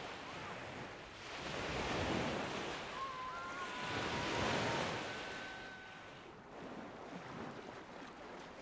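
Small lake waves washing up onto a sandy beach. They surge and fall back, louder about two seconds in and again around four to five seconds, then quieter.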